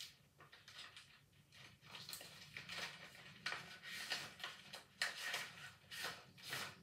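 Paper sword being swung and handled, giving a string of short, faint papery swishes and rustles.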